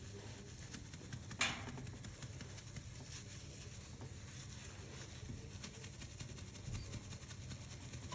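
A baby burping after a feed: one short, sharp burp about a second and a half in, over a low steady hum.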